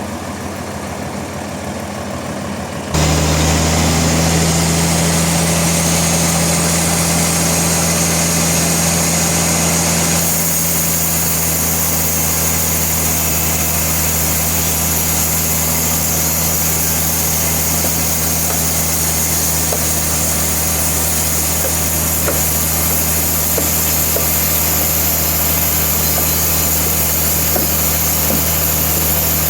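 Sawmill machinery running steadily with a low hum and a high hiss, not yet cutting wood. The drone gets suddenly louder about three seconds in.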